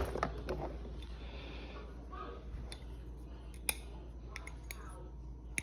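A pocket knife being handled, giving a handful of separate sharp metal clicks spaced irregularly over a low steady hum.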